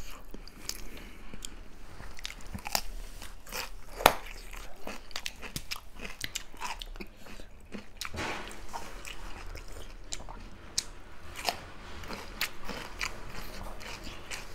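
Close-up chewing and eating noises from people eating a plate of spicy buffalo chowmein: a steady run of short wet clicks and crunches, with a sharp click about four seconds in.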